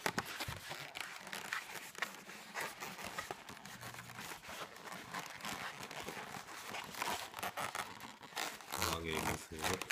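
White latex modelling balloons rubbing and squeaking against each other and the fingers as they are twisted and tucked into shape, with a few louder pitched squeaks near the end.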